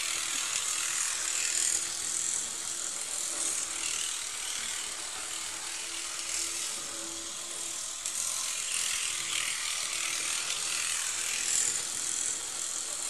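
Model railway train running on its track: the small electric motor of the locomotive whirring and the wheels clattering over the rails, steady with a faint hum under it, easing off a little midway and louder again about eight seconds in.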